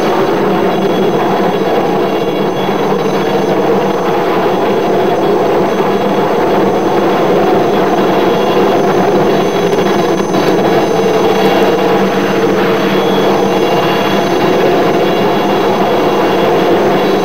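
Air Corps helicopter hovering low overhead while its winch lowers a rescuer: a loud, steady turbine-and-rotor drone.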